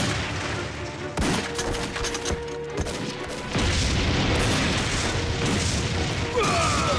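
Battle sound effects: gunfire and booming explosions with background music underneath. A burst of sharp shots comes about a second in.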